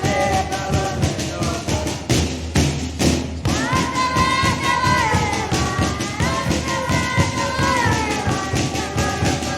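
Sikuri ensemble: many panpipes (sikus) playing a sustained melody together over a steady drum beat, with a brief rush of breathy noise about two to three seconds in.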